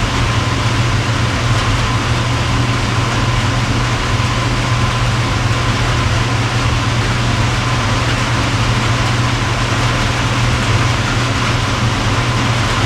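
Steady machine hum with an even hiss, unchanging throughout, typical of a fan or air-conditioning unit running in the background.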